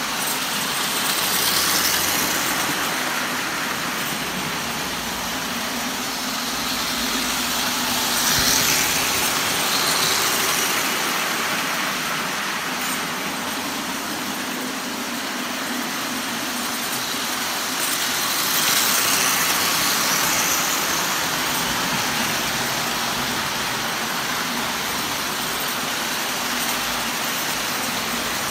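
Standard gauge tinplate electric toy trains running on three-rail steel track: a steady metallic rolling rumble of wheels and motors, which swells a few times as a train passes close by.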